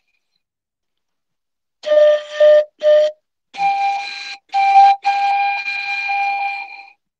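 Pan flute playing a short melodic phrase after about two seconds of silence: three short, lower notes, then higher notes ending in one long held note that stops a little before the end. The notes are breathy, with air noise under the tone.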